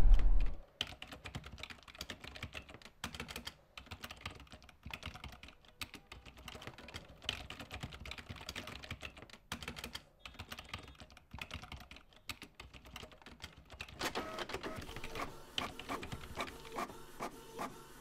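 Typing on a laptop keyboard: a long run of soft, uneven key clicks. About fourteen seconds in, a regular mechanical clatter with a steady hum starts up alongside the typing, about two to three strokes a second.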